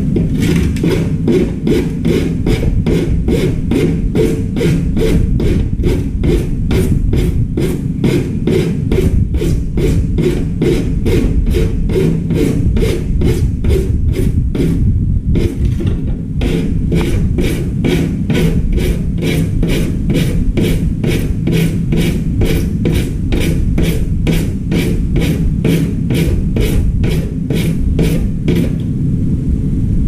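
Hand file rasping back and forth against the edge of a plastic grille panel, in steady strokes about two to three a second, breaking off briefly midway, over a steady low rumble.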